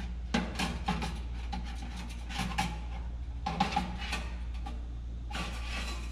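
Steel wood-stove parts clinking and knocking as they are handled, a quick irregular series of metal knocks, some ringing briefly, over a steady low hum.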